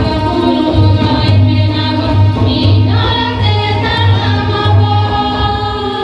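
A group of women singing together into microphones, backed by a keyboard and a large barrel drum keeping a steady beat about twice a second. The voices come in about halfway through, over the instruments.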